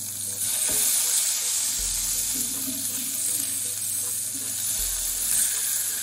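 Pork patties frying in hot oil in a pan: a steady sizzle that gets louder about half a second in.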